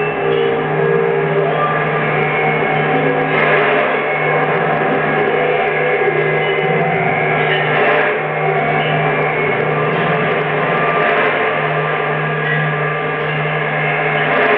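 Dense electroacoustic drone from a live improvisation on electronic devices and amplified objects: many held tones layered over a steady low hum, with brief swells of noise about three and a half and eight seconds in.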